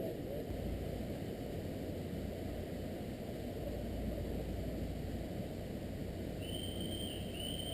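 Steady low noise on a head-mounted action camera's microphone. Near the end there are two short, high whistle-like tones, one just after the other.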